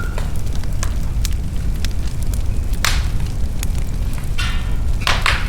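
Wood fire burning in a fireplace: a steady low rumble of flames with scattered small crackles and a few sharp pops, the loudest about three seconds in and two close together near the end, plus a brief hiss just before them.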